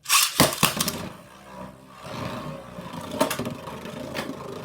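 A Beyblade Burst top, Rage Longinus on a Destroy Dash driver, is launched with a sudden loud rip and clatter, then spins with a steady whirring rattle and occasional sharp clicks. The launch is a weak one, and he wants to launch much harder.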